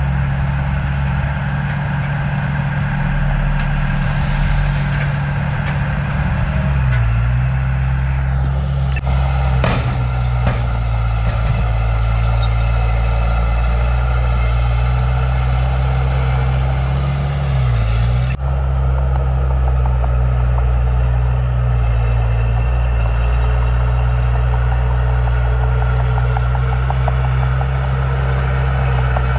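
Heavy diesel engine of earthmoving machinery running steadily, its note dipping briefly twice, with a few short knocks about a third of the way in.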